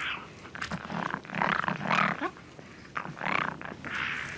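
Foxes snarling at each other over a carcass: a run of about five short, harsh, raspy snarls.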